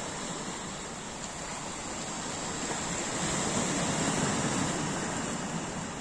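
Small sea waves washing onto a rocky shore, a continuous rush that swells louder around the middle and eases off toward the end.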